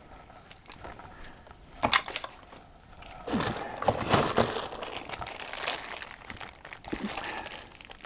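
Hands rummaging through packing material in a cardboard box, a crinkling rustle that starts about three seconds in, is loudest for the next two seconds, then fades. A single click comes about two seconds in.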